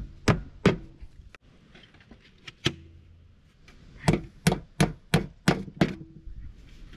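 Hammer blows on wood. There are two quick strikes, then a single one, then a steady run of six at about three a second.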